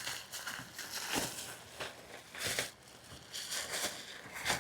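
Packaging being unwrapped by hand around a shipment of fuel injectors: irregular rustling and crinkling, with a sharper crackle near the end.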